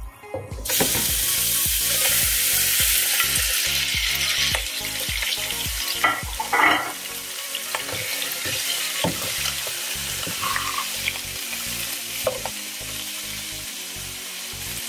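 Cubes of raw beef chuck dropped into hot ghee in a pan and sizzling. The frying starts suddenly and loud about a second in, then eases a little, while a wooden spatula pushes and stirs the meat with a few light knocks against the pan.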